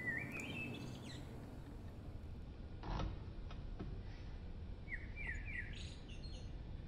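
Small birds chirping in short runs of quick notes, once near the start and again about five seconds in, over a low steady background hum. A single light knock comes about three seconds in.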